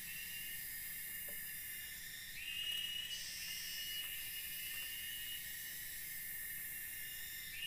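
Forest insects chorusing: a high-pitched trill that starts and stops every couple of seconds over a steady shrill hiss, with a few faint knocks.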